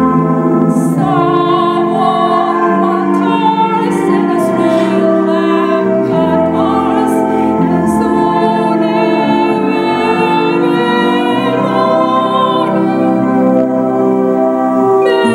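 A woman singing a slow song in long held notes with vibrato, over instrumental accompaniment.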